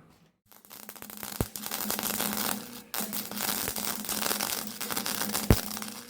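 Electric arc welder running a bead on steel: a steady frying crackle with an underlying hum, starting about half a second in, breaking off briefly near three seconds and then resuming, with a sharp pop about five and a half seconds in.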